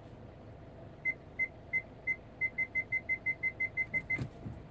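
Vehicle parking-sensor beeps at one high pitch, four spaced out and then eleven quickening to about six a second as an obstacle gets close. A brief low thump follows near the end.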